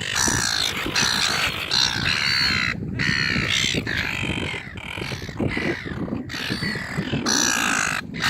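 Seagulls calling, many harsh calls overlapping one another with only brief pauses.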